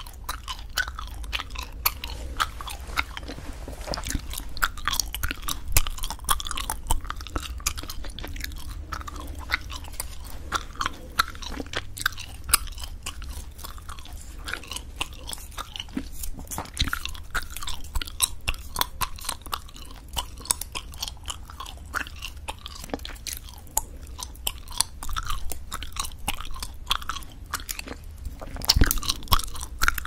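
Spearmint gum chewed close to the microphones, with frequent sharp cracking and snapping of the gum, several clicks a second.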